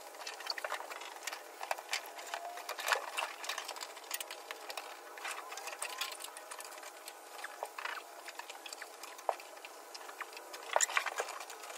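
Irregular rustling, scraping and sharp knocks as a stiff old firewall insulation blanket of felt and rubber is handled and pressed into place against a car's bare metal firewall. There are louder clusters of knocks about three seconds in and again near the end.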